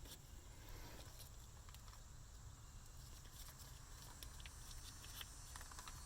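Faint scattered light clicks and rustling from hands handling small parts, over a steady low hum.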